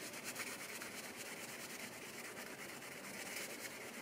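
Fast, steady rubbing as the bare zinc body of a die-cast toy car is buffed by hand with car wax to polish off oxidation.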